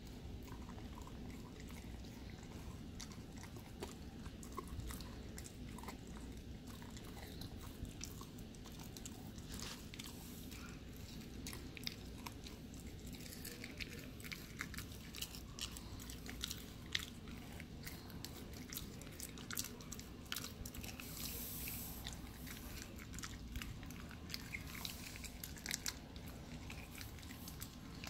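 Husky puppy chewing a raw chicken neck, the small bones crunching between her teeth: irregular wet chewing, clicks and crunches, coming more often in the second half.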